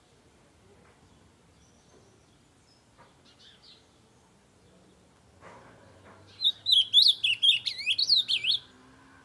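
Ultramarine grosbeak (azulão) singing one loud warbling phrase of quick rising and falling notes, about two seconds long, starting past the middle. A few faint chirps come before it.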